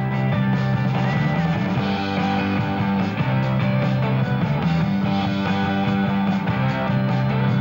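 Background music with guitar, played as the soundtrack.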